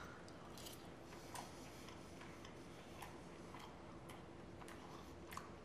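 A person quietly chewing a mouthful of pan-fried slime mold with a lightly crunchy toasted outside: faint, scattered mouth clicks, roughly one or two a second, over quiet room tone.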